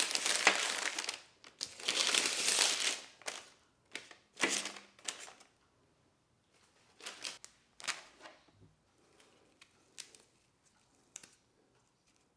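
Crinkling, rustling handling noise: two long bursts, then shorter ones about four and seven seconds in, thinning to a few light clicks.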